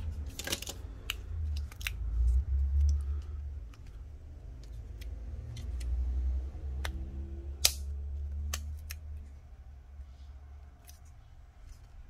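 Scattered sharp clicks and taps of plastic and glass as the Samsung Galaxy A42's new screen assembly and middle frame are handled and pressed together along the edges to seal, over a steady low hum.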